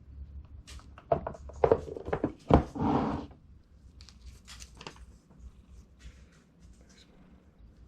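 Plastic parts and packaging being handled: a quick run of sharp clacks and knocks about a second in, ending in a brief rustle around three seconds, then only faint small clicks.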